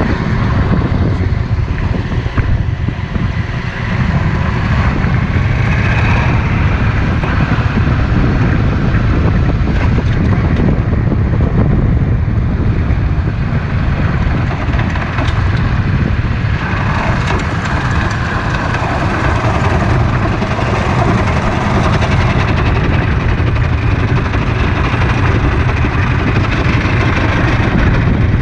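Yamaha Drag Star 650's V-twin engine running under way, with wind rushing over the microphone. The sound becomes brighter about seventeen seconds in.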